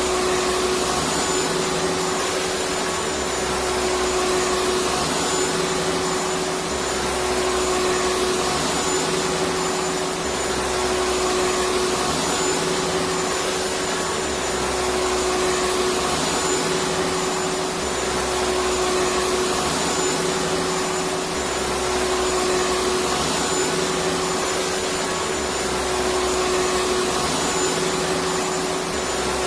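Electric vacuum cleaner running steadily: an even rush of air with a constant hum, and a low rumble that comes and goes every few seconds.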